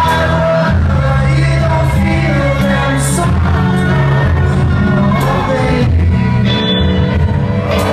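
Live rock band playing loud: a man sings into a microphone over electric guitar and drums, with heavy low notes underneath.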